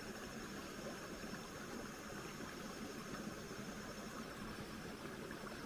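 Faint, steady outdoor background noise, an even hiss, with a thin high-pitched steady tone over it that stops about four seconds in.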